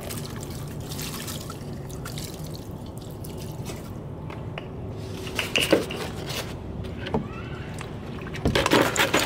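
Solvent pouring from a plastic jerrycan into a plastic bucket of starter-motor parts, then sloshing as the parts are worked around in it by hand, with a few sharp knocks of the parts. It gets louder near the end.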